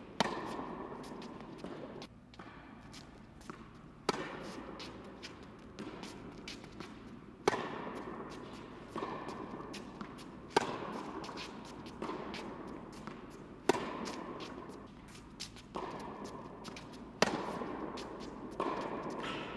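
Tennis rally in an indoor hall: a racket strikes the ball six times, about every three seconds, each loud hit echoing in the hall. Fainter hits and bounces from the far end of the court fall in between.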